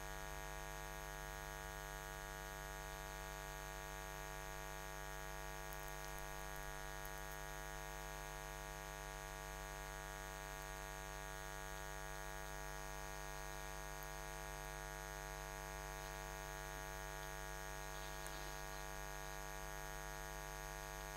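Steady electrical mains hum with a buzzy edge, running unchanged without a break.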